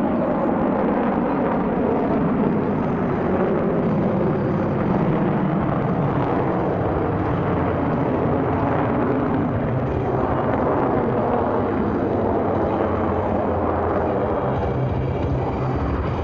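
Four Blue Angels F/A-18 Hornet jets flying overhead in formation: steady jet engine noise with slowly sweeping rises and falls in tone as they climb and loop.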